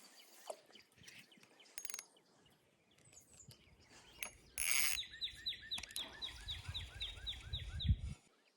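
A songbird singing a fast run of repeated down-slurred chirps, about four or five a second, starting about halfway through and stopping abruptly near the end, over a low outdoor rumble. A short hissing burst comes just before the song.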